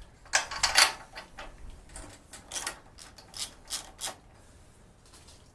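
Irregular sharp metallic clicks and clatter from tools and small engine parts being handled: a quick cluster about half a second in, then several single clicks spread over the next few seconds.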